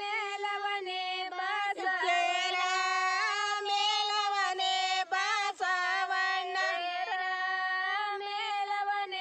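Women singing together without instruments, one melody in long held notes that slide between pitches.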